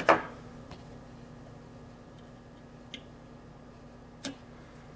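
Small fly-tying scissors snipping at the head of a tiny midge fly: a few short, sharp snips a second or more apart, the first the loudest, over a faint steady hum.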